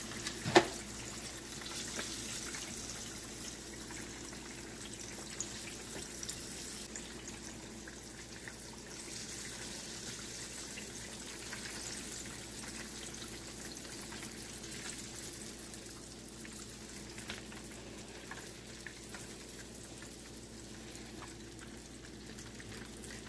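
Flour-coated fish fillets frying in a skillet of hot oil: a steady sizzle. A sharp click of the tongs sounds about half a second in, with a few lighter taps later.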